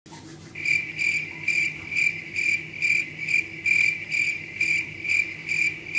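Cricket chirping sound effect: a high chirp repeating evenly a little over twice a second, starting about half a second in, the stock 'crickets' cue for an awkward silence.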